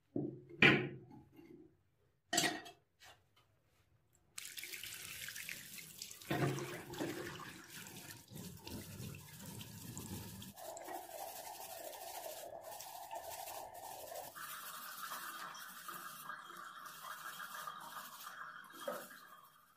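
A few sharp knocks as the rusty iron hammer head is moved about in a ceramic sink. Then, about four seconds in, a tap turns on and runs steadily while the head is scrubbed with a stiff brush under the stream, rinsing off the loosened rust.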